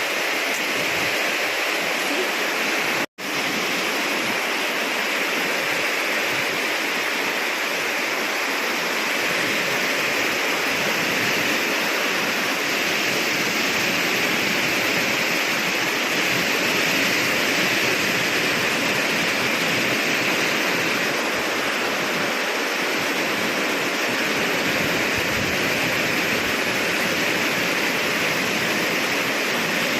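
Heavy typhoon rain pouring steadily, a dense, even hiss, broken once by a momentary gap about three seconds in.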